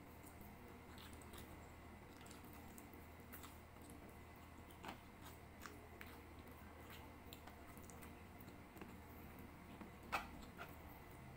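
Faint hand-eating sounds: fingers pressing and scooping cooked rice and chicken on a tray, with scattered soft clicks. A sharper click comes about five seconds in, and the loudest about ten seconds in.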